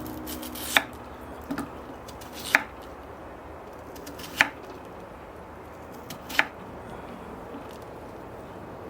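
Knife chopping on a cutting board: four sharp, slow strikes roughly two seconds apart, with a lighter tap between the first two.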